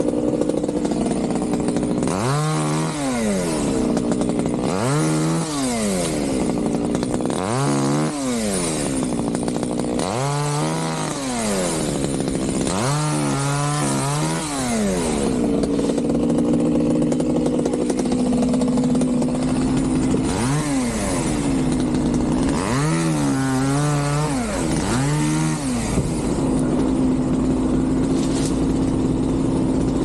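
A chainsaw is revved up and back down about ten times as it cuts into tree wood. It comes in two bursts separated by a few seconds, over the steady sound of an engine running.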